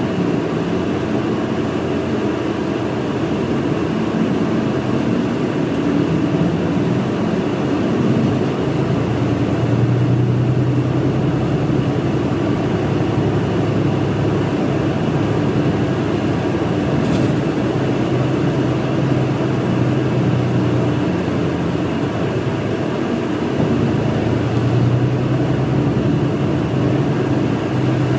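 Route bus's diesel engine running, with road noise, heard from inside the passenger cabin. The engine's low drone grows stronger about a third of the way in and again near the end.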